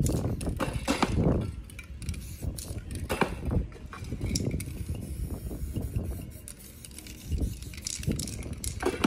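Aerosol spray-paint can sprayed onto poster board in short hissing bursts, most of them in the first second or so and again near the end, with knocks and rubbing from hands and materials in between.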